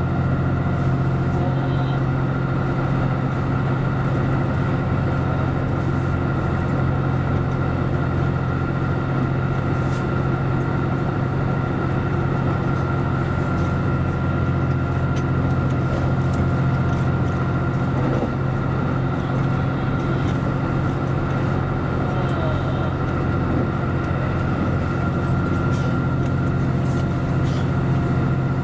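Series 85 diesel express train running at speed, heard from inside the front car: a steady low drone of its Cummins diesel engines and wheels on rail, with a faint steady high tone over it.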